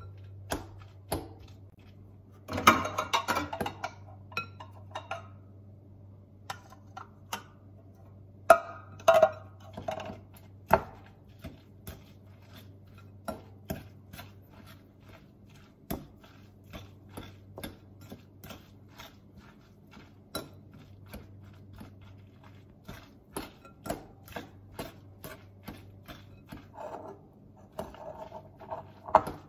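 A metal fork clinking and scraping against a glass mixing bowl while flaking canned tuna, in irregular taps with a few busier scraping spells. A steady low hum runs underneath.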